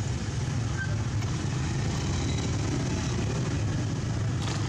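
Steady low rumbling background noise that holds an even level throughout, with a faint click near the end.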